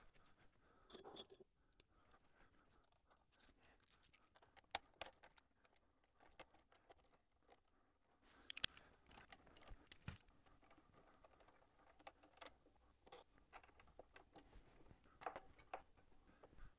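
Faint, scattered clicks, taps and scrapes of hand tools and metal parts being handled at a motorcycle's front wheel and brake caliper, with near silence between them; the sharpest click comes about halfway through.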